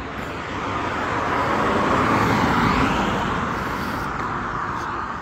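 A car driving past on the road: tyre and engine noise swells to its loudest about halfway through, then fades away.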